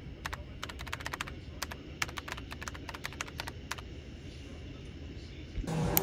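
Keyboard typing: a quick, irregular run of sharp clicks for about three and a half seconds over a low steady background. Near the end a louder room ambience cuts in.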